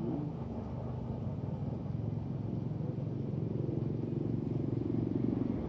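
An engine running with a low rumble, getting gradually louder toward the end.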